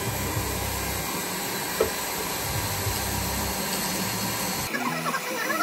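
Steady whirring hiss of a jeweller's polishing motor running, with one short click about two seconds in. The sound cuts off abruptly near the end, giving way to music.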